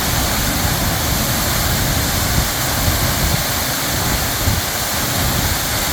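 Glencar Waterfall rushing in full flow after heavy rain: a loud, steady roar of falling water.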